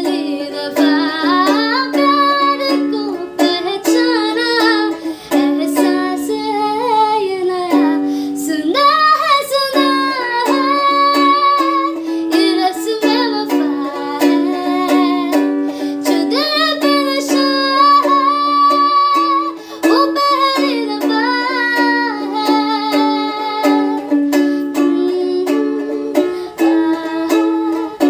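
Ukulele strummed in a steady rhythm, with a voice singing a melody over it.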